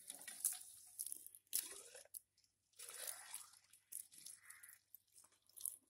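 Water pouring from a metal bucket into a small electric water pump to prime it, splashing in uneven spurts.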